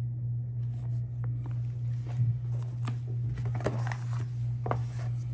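Handling sounds of a leather-bound Bible being laid back into its rigid cardboard presentation box: a string of soft knocks, scrapes and rustles, busiest in the second half, over a steady low hum.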